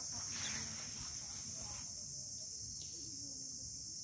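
Insect chorus in tropical forest: a steady, unbroken high-pitched drone.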